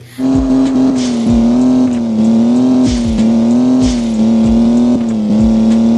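Electronic engine sound from a yellow toy sports car: a steady buzzing engine tone with a slightly wavering pitch and low falling swooshes about once a second. It cuts in suddenly.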